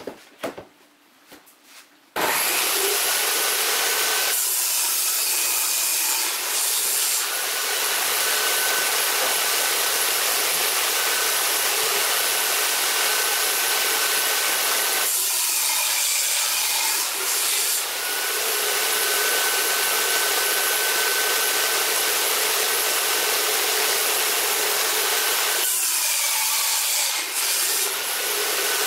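After a couple of seconds of quiet with a few clicks, a table saw runs loudly with a steady whine. Three times the sound changes and the whine drops away as the blade cuts through a plywood sheet.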